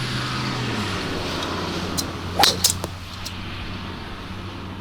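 Mazda Miata running on a test drive: a steady engine hum over road and wind noise, dropping in pitch about a second in, with a few sharp clicks and a short squeak about two and a half seconds in.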